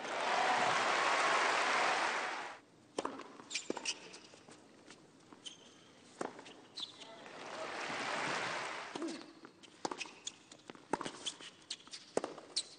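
Tennis rallies on a hard court: sharp knocks of racquet strings hitting the ball and the ball bouncing, a few per second. Between rallies the arena crowd cheers and applauds, loudest at the very start and again in the middle.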